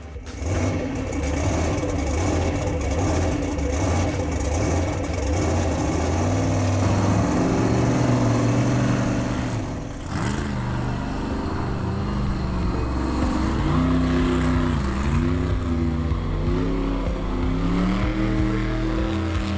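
Monster truck engine running hard and revving as the truck spins a donut, its pitch rising and falling repeatedly, with a brief drop in level about ten seconds in. The throttle is not pushed all the way to the floor.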